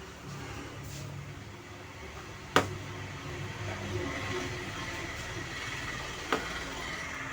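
Bench work on a circuit board: a steady low hum in the room, with a sharp click of a tool or part a little over two seconds in and a smaller one near the end. The sound cuts off suddenly at the end.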